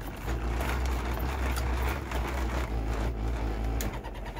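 3D-printed dual-cone pulse motor spinning, with a steady low hum and a noisy mechanical rattle broken by a few sharp clicks. Most of the noise comes from the magnets cogging as they pass the drive coils and from the base vibrating.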